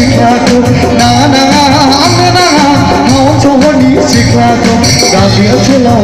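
Live band playing amplified music on electric bass guitar, keyboard and drums, loud and continuous, over a repeating bass line.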